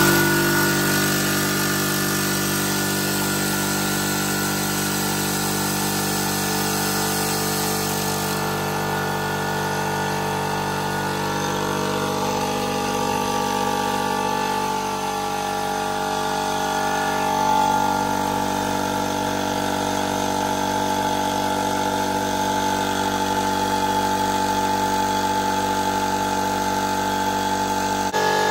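Aldi Workzone 24-litre piston air compressor running loudly and steadily just after switch-on, its motor and pump filling an empty tank.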